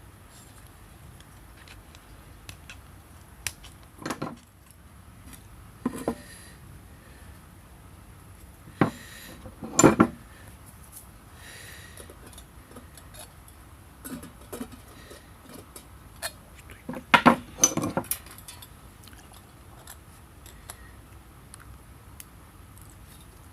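Small metal pieces being handled, clinking and clattering in scattered knocks. The loudest come about ten seconds in and again in a quick cluster near eighteen seconds.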